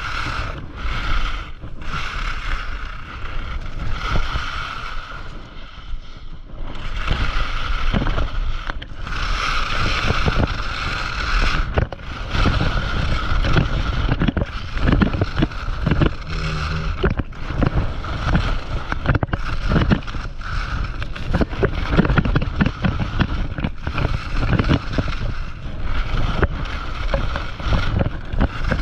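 Atomic skis carving down a groomed piste, the edges scraping and hissing over packed snow, mixed with wind rushing over the microphone. The sound rises and falls from turn to turn.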